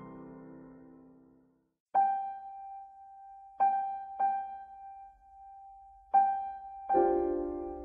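Background piano music: a chord fades out, then after a brief pause a single high note is struck four times, and a fuller chord comes in near the end.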